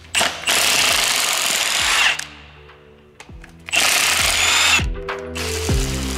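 Cordless impact wrench hammering out the cylinder head bolts of a 4.8-litre LS V8 in two runs, the first about two seconds long and the second about a second, with background music underneath.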